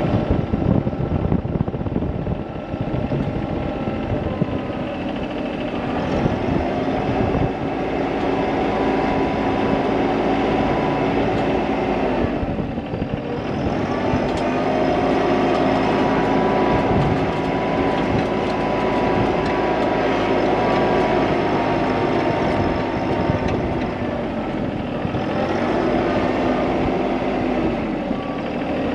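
A motor vehicle engine running continuously, its pitch shifting up and down several times as the load or speed changes.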